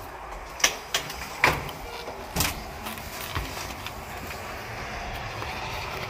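Someone clambering up to an upper floor: a few sharp knocks and scuffs, four clear ones in the first two and a half seconds, then only faint rustling over a steady low hiss.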